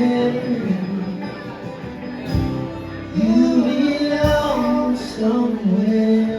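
Live band playing a song with singing, sustained sung notes over guitar. Two heavy drum-like thumps stand out about two and four seconds in.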